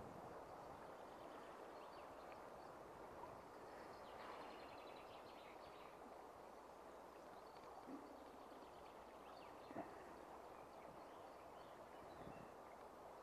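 Near silence: the faint steady rush of a flowing stream, with faint bird chirps and a couple of soft clicks.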